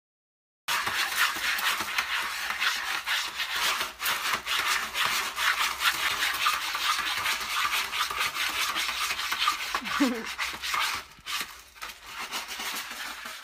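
A cat digging in a litter tray of stick-shaped litter pellets, its paws raking the pellets in a rapid rasping scrape that starts about a second in. A short sound sliding down in pitch cuts in about ten seconds in.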